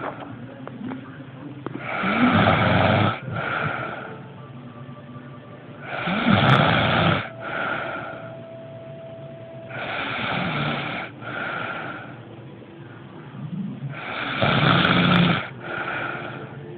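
A person snoring loudly, four snores about four seconds apart. Each is a long snoring breath followed by a shorter, quieter one.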